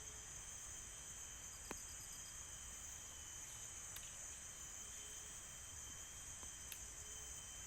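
Steady, high-pitched insect chorus of the rainforest, with a thinner steady tone below it and a few faint clicks scattered through.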